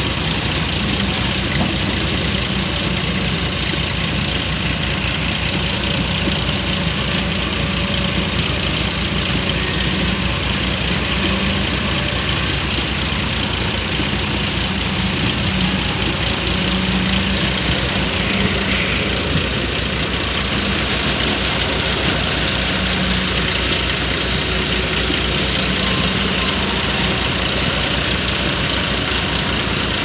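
A JCB tracked excavator's diesel engine running steadily with a low, even throb.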